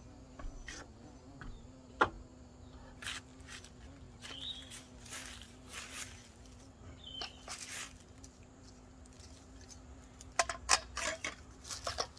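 Light clicks, clinks and short rustles of objects being handled, over a faint steady low hum, with a quick run of sharp clicks near the end.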